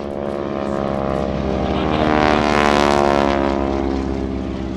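Boeing Stearman biplane's radial engine and propeller in a flypast. The sound swells to its loudest about halfway through, with a rasp from the propeller at the peak, then fades as the aircraft passes.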